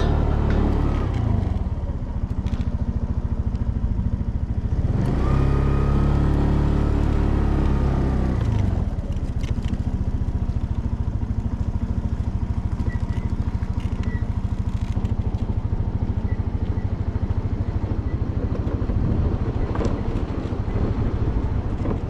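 A vehicle's engine slows at first, then revs up for a few seconds from about five seconds in. It drops back to a low, steady rumble for the rest.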